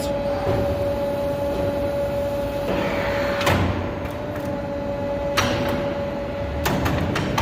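CNC tube bending machine running with a steady hum, broken by sharp clacks of the machine working: about three and a half seconds in, again a couple of seconds later, and near the end.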